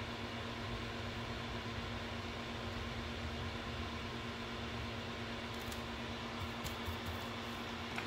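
Bench fume extractor's fan running with a steady hum. A few faint small ticks come in the last few seconds, and one sharp click right at the end.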